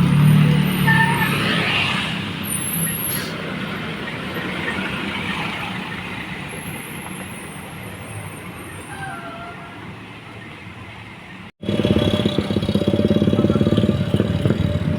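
A bus driving past, its engine loud at first, then fading away over about ten seconds. After a sudden cut, a loud vehicle engine runs steadily close by with a fast rattle.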